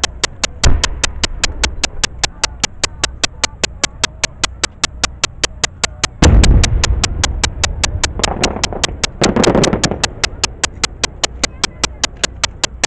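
Aerial fireworks: a deep boom about a second in, then a much louder boom about six seconds in that rumbles away, followed by a burst of crackling. Throughout, a steady rapid ticking goes on, about four or five ticks a second.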